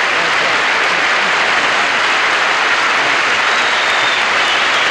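Large audience applauding steadily in a standing ovation, a dense, unbroken wash of clapping.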